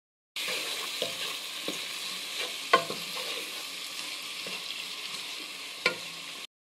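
Sliced onions and tomatoes sizzling in oil in a pan as a wooden spoon stirs them, with a steady hiss. The spoon knocks against the pan four times, loudest a little under halfway through.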